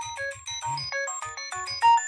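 Nokia 6610 mobile phone playing a synthesized ringtone melody: quick short notes over a pulsing bass line, with a louder high note near the end.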